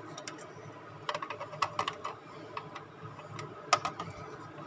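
Irregular small plastic clicks and rattles as a hand fumbles a USB pen drive into a port on the back of a computer among a tangle of cables, the sharpest click near the end.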